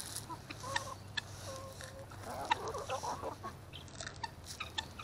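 A mixed flock of chickens and guinea fowl clucking softly with short calls while pecking at scattered grain, with a brief burst of chattering calls about halfway through and scattered small clicks.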